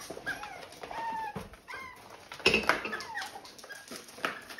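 Eight-week-old puppies whining and whimpering in a wire crate, a string of short, high, wavering cries with a louder, sharper one about two and a half seconds in. It is the distress of being shut away from their mother at weaning.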